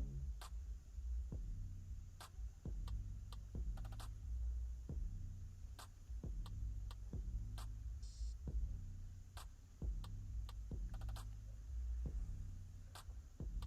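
Small items being handled close to the microphone: irregular sharp clicks and taps, about one or two a second, over a steady low hum.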